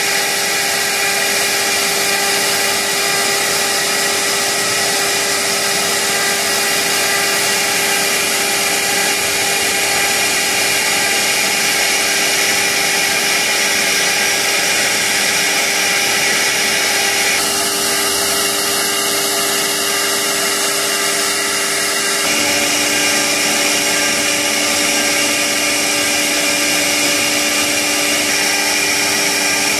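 CNC router spindle running at speed while its bit mills a pocket into a white-faced board: a steady, unbroken machine whine made of several held tones over cutting noise.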